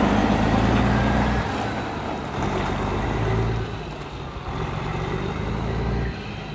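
Diesel engine of a semi-truck tractor, without a trailer, pulling away and driving off. The engine note drops and picks up again a few times as it moves off and gets farther away.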